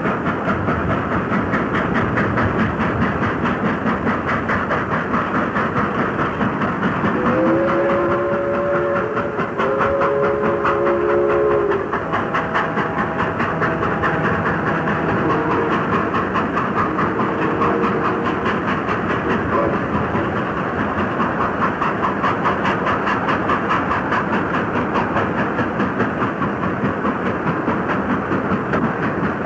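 Steam freight train, hauled by a 2-10-4 'Texas type' locomotive, running past with a steady fast rhythmic beat from the engine and wagons. About a quarter of the way in, its chime whistle gives two long two-note blasts, followed by fainter, higher-pitched whistle sounds.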